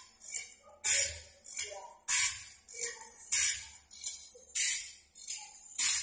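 Automatic saw-sharpening machine grinding the teeth of a wide band saw blade: a hissing grind as the wheel dresses each tooth, about one stroke every 1.2 seconds, in an even rhythm.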